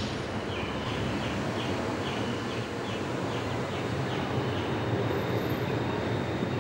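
Steady rumbling background noise with a row of faint, short, high chirps repeating about two to three times a second.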